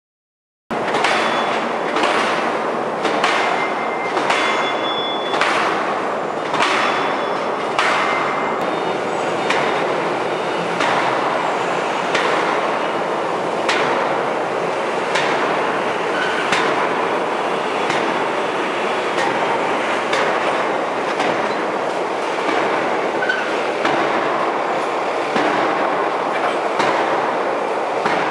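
Forging hammer striking in a steady rhythm, about one heavy blow every second and a half, over a loud continuous forge-shop machinery din that starts just under a second in.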